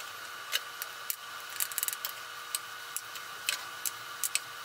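Scattered light clicks and taps of a utensil against glass baking dishes as ground beef is spread over the vegetable filling, irregular with a small flurry about two seconds in, over a steady faint hum and hiss.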